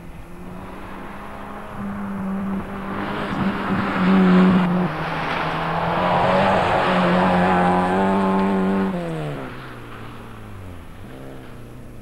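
Rally car engine at full throttle on a forest stage, revving hard with its pitch stepping up and down through gear changes, loudest in the middle, then falling in pitch and fading as the car pulls away.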